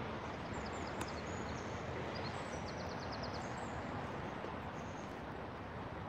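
Steady rush of a river flowing, with small birds chirping high above it: scattered chirps and a quick run of about seven notes near the middle. A single click about a second in.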